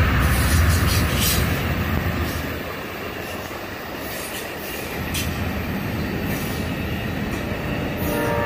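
Amtrak passenger train of bilevel Superliner cars rolling past: a steady rush of steel wheels on rail with a few sharp clicks from the rail joints. The diesel locomotives' low rumble fades over the first couple of seconds as they pull away, and a horn starts to sound right at the end.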